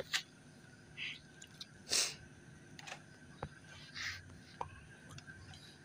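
Faint scattered scrapes and a few light clicks as a screwdriver-style voltage tester is touched and tapped against bare wires on cardboard. The largest scrape comes about two seconds in, and the clicks come in the second half.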